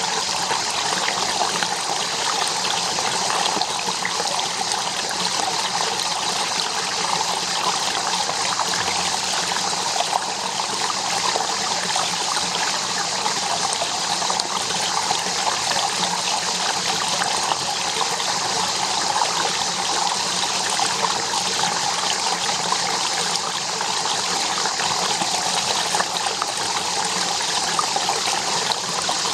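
Running water: a steady, even rush of flowing water with no change throughout.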